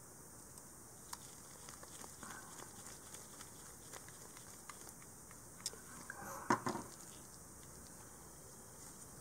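Small screwdriver turning a screw into an aluminium plate: faint scattered clicks and scrapes of metal on metal. About six and a half seconds in comes a brief, louder cluster of knocks as the metal parts are handled.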